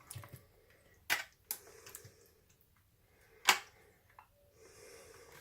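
Food containers being handled: a few sharp clicks and knocks, the loudest about three and a half seconds in, with faint rustling between.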